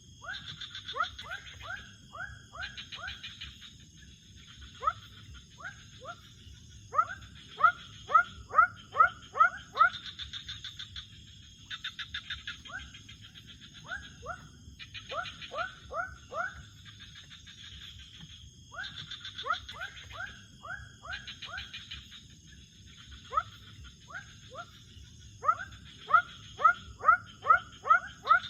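Night-time wild animal chorus: short rising calls repeated in runs of five to eight, again and again, over a steady high insect buzz.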